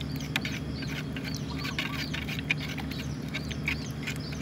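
Birds chirping and calling many times in quick succession, over a steady low hum. A spoon stirs urea fertilizer into water in a plastic bucket, with a few sharp taps, the loudest about two and a half seconds in.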